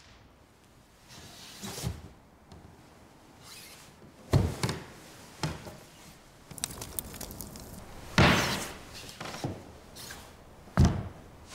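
Four heavy, sudden thumps spaced a second or more apart, among a few lighter knocks, over a faint hiss. The third thump is followed by a long rushing swish.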